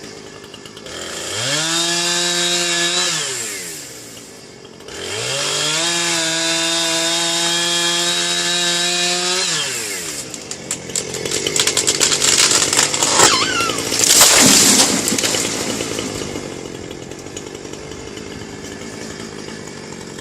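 Chainsaw revved up twice into a back cut, dropping to idle between. Then a loud run of cracking and crunching, loudest near the middle of it, as the tree comes down, and the saw runs on at idle.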